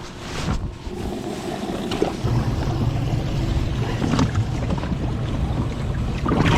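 Boat running across the lake: a steady low engine drone with wind and water noise, growing louder in the first couple of seconds.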